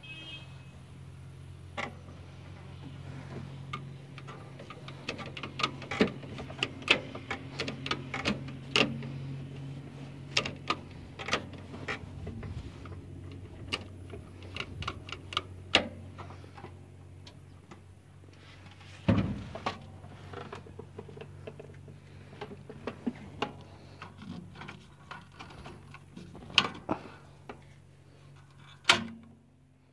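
Fiat 70-66 tractor's diesel engine idling steadily, heard from the cab, under many irregular sharp clicks and knocks of metal fittings being handled, with a louder thump about 19 seconds in.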